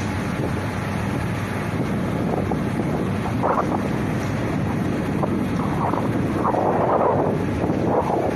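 Airbus A330's jet engines running at low power, a steady rushing roar with wind buffeting the microphone. The roar swells slightly in the second half.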